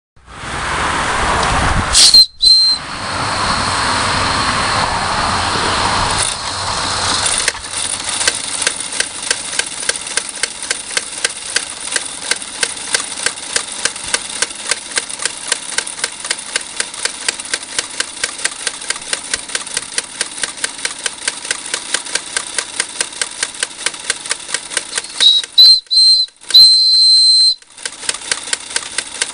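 Wilesco D20 toy steam engine: steam hissing loudly at first, with a short shrill blast of its steam whistle about two seconds in. The engine then runs with an even, rapid exhaust puffing, and near the end the whistle sounds again in a few short toots.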